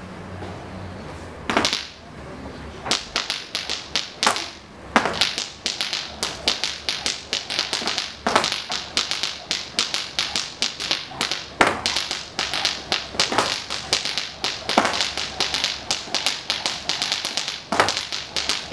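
Malambo zapateo footwork: a dancer's heels and soles strike a wooden dance floor in fast, dense tapping rhythms, with louder single stamps every few seconds. It starts about a second and a half in.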